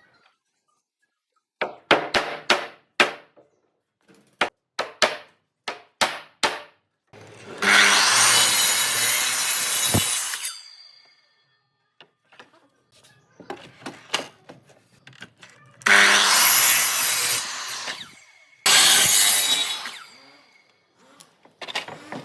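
A saw cutting through wood in three runs of about two to three seconds each, each starting suddenly. Before and between the cuts come sharp knocks and light clicks of wood being handled and struck.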